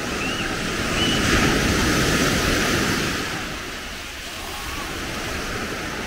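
Sea surf breaking and washing up on a sandy shore: the wash swells about a second in and eases off around four seconds. Wind buffets the microphone.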